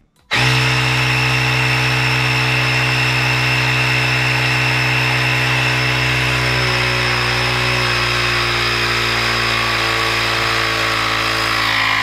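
Cordless mini tyre inflator's piston compressor starting about half a second in and running steadily, a loud buzzing hum with a high whine. Its pitch sinks a little as the pressure builds against the hose end held in the hand.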